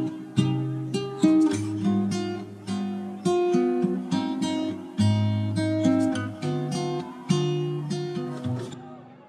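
Background music on acoustic guitar: plucked notes and strums, each ringing out and dying away, fading near the end.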